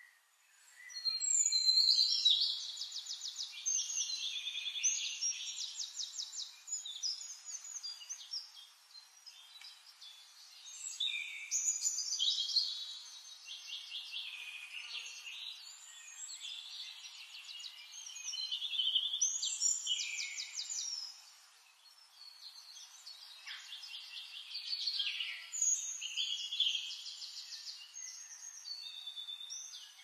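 Forest songbirds singing long, rapid, high-pitched trilling and warbling phrases, in four bouts of several seconds each with short pauses between, over a faint steady hiss of forest ambience.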